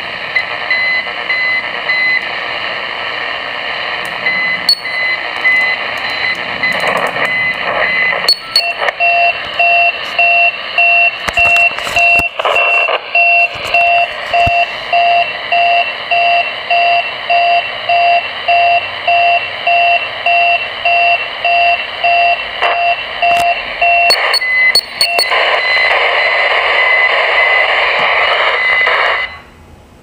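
Unidentified beeping signal on CB channel 39 (27.395 MHz) coming through a CB radio's speaker over band hiss: short tones repeating at about two a second, the pitch of the beeps changing a couple of times, with the signal cutting out near the end. The uploader takes it for a channel marker or jamming.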